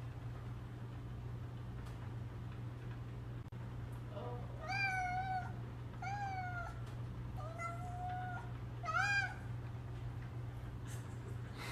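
A domestic cat meowing four times, short calls spaced about a second apart, starting about five seconds in, over a steady low hum.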